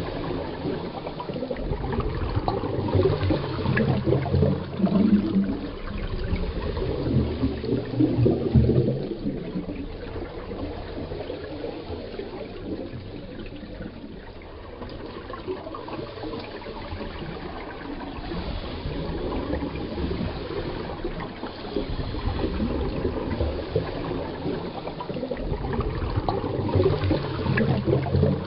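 Scuba diver's exhaled bubbles gurgling from the regulator, heard underwater through the camera housing. The rumble swells and fades every few seconds, with a quieter stretch of several seconds in the middle.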